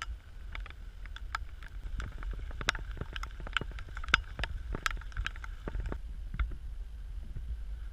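Footsteps crunching on a gravel driveway, with knocks from a handheld camera, irregular at about two or three a second and stopping about six and a half seconds in, over a steady low rumble.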